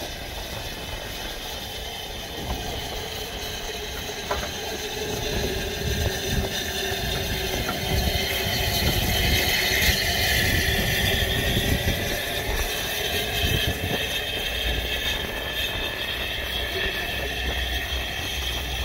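Narrow-gauge 2-6-2T steam locomotive Lyd rolling slowly past, its coupling rods and valve gear clanking and rattling over the rails. It grows louder near the middle as it passes close by.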